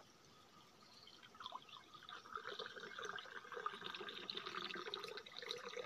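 Liquid poured from a plastic bottle in a thin stream from a height, splashing and gurgling into a small vessel. The pouring starts about a second and a half in and keeps going.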